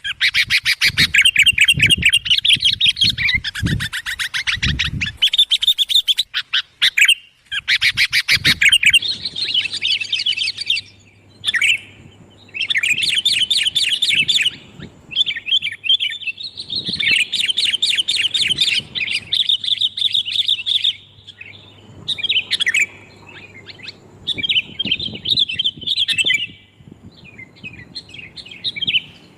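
Sooty-headed bulbuls (kutilang) giving loud, rapid chattering call bursts a few seconds long, with short pauses between them. These are the agitated calls played as a lure to draw in bulbuls.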